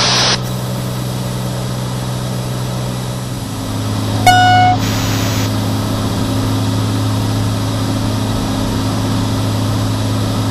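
Cirrus SR22's piston engine and propeller running steadily in the cockpit. The engine note drops slightly about three seconds in, as power comes back for the descent to 3,000 ft. A second later a short, loud electronic beep sounds once.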